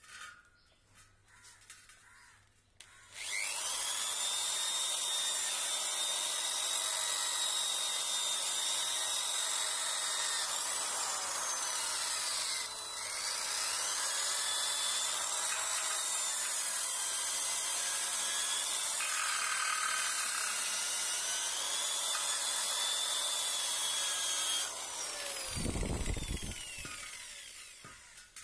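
Electric hand drill spinning a red abrasive wheel against the rusty inner face of a motorcycle spoke rim, grinding off rust. It starts about three seconds in with a rising whine as it spins up, runs steadily for about twenty seconds with its pitch wavering under load, then stops, followed by a short low rumble.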